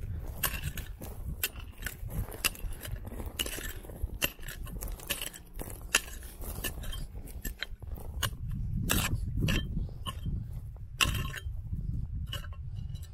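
Rose quartz stones clicking and clinking against each other as they are handled, in quick, irregular sharp knocks, over a low rumble.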